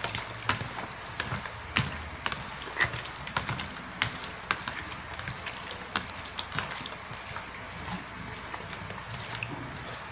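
Hands rubbing and turning cut catfish pieces in vinegar in a plastic basin to strip off the slime: irregular wet squelches and light taps of fish against the basin, thinning out near the end.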